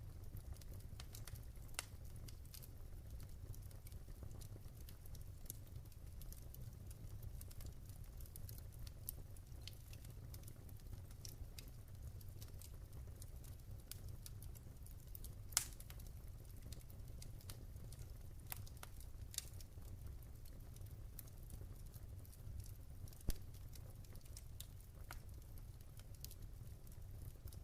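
Wood fire burning in a fireplace: scattered sharp crackles and pops over a steady low rumble, with two louder pops about halfway through and later on.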